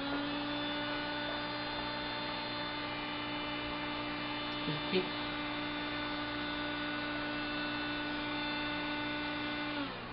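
A small electric motor running with a steady pitched hum, rising slightly in pitch as it starts and dropping away just before the end. A couple of light knocks come about five seconds in.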